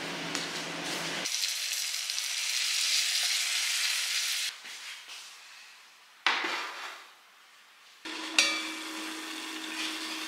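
Kitchen cooking sounds across quick cuts: a hissing sizzle for the first few seconds, a sudden knock of a ceramic pot being handled on its electric hotpot base about six seconds in, then a steady hiss with a low hum.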